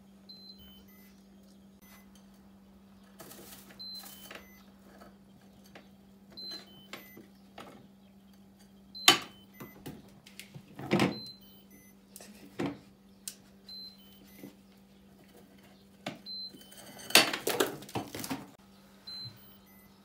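A raccoon moving about inside an open refrigerator, knocking and rattling the plastic shelves and crisper drawers in scattered bursts, the loudest about nine, eleven and seventeen seconds in. A steady low hum runs underneath.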